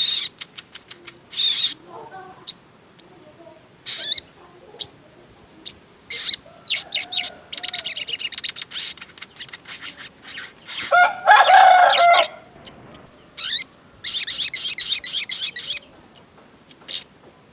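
A sogon songbird singing a varied song of rapid high chirps and fast trills, with a louder, harsher rattling phrase about eleven seconds in.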